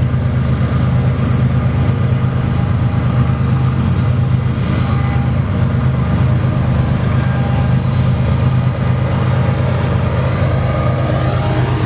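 BNSF 8278's diesel freight locomotive engine running close by, a loud steady low hum with steady overtones.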